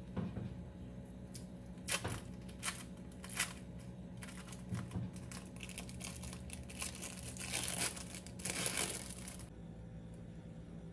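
Plastic wrapper being peeled off a processed cheese slice: a few sharp crackles, then a longer spell of crinkling that stops about a second and a half before the end.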